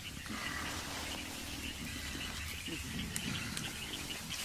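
Rainforest ambience: an insect chirping in a steady pulse of about four chirps a second over a steady hiss, with low gliding grunts from mountain gorillas.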